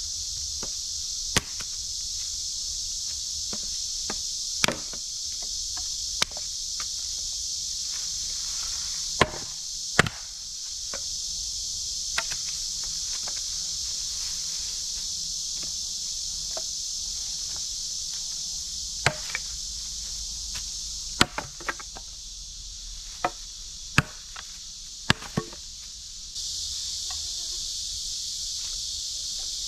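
A steady high chorus of crickets, over which firewood is chopped: about a dozen sharp chopping strikes at irregular intervals, with a pause of several seconds in the middle.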